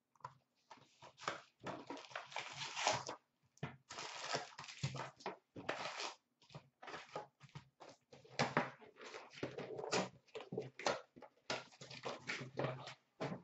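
Hands opening a cardboard hockey-card box and handling its wrapped trading-card packs, with irregular rustling, crinkling and tearing of cardboard and pack wrappers as the packs are pulled out and stacked.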